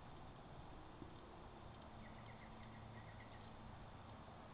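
Faint outdoor ambience: a low, even background hiss with a bird chirping faintly, a run of short, quick notes around the middle.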